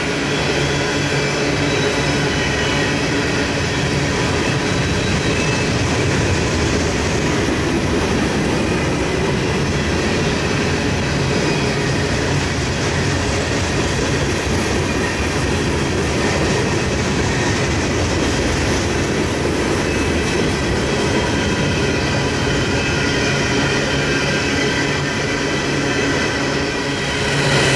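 A train rolling steadily past, with the continuous noise of its wheels on the rails and faint thin steady squealing tones.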